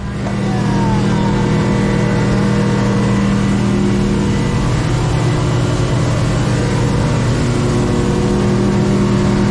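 Boat engine running steadily under way, building up over the first second and then holding an even pitch.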